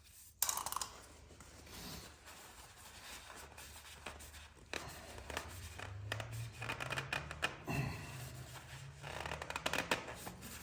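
Hands threading a new oil filter onto the motorcycle engine and spinning it down hand tight: soft rubbing and scattered light clicks over a faint steady low hum.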